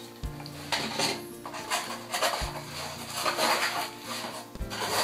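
Clattering and rustling of packaging being handled: a plastic monitor unit set down and a hand rummaging in a molded pulp box insert, in several short bursts. Quiet background music runs underneath.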